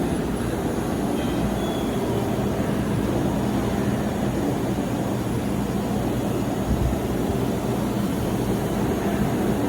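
Blohm Planomat 612 CNC surface grinder running under power: a steady mechanical hum with constant low tones over an even rushing noise.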